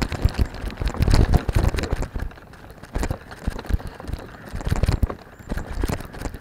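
A camera mount jolting as it moves over grass: an irregular run of sharp knocks and rattles over a low rumble, heaviest about a second in.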